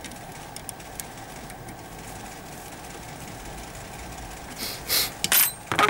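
A hex key works the clamping screw of a metal split clamp, making a few short, loud scraping and clicking noises near the end. Under them a steady low hum runs throughout, with a few faint clicks.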